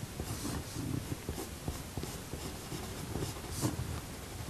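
Coloured pencil scratching on drawing paper in short, irregular strokes as hair is worked in.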